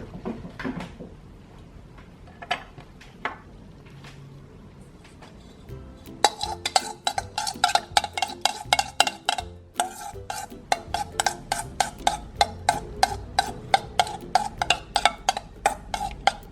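A utensil stirring slime mixture in a bowl, clicking against the bowl's side. After a few scattered knocks, a fast, even run of clicks starts about six seconds in, about four a second, with a short pause near ten seconds.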